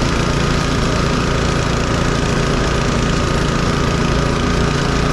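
Power trowel's engine running steadily under load as it finishes a concrete slab, with a thin steady whine over the engine note.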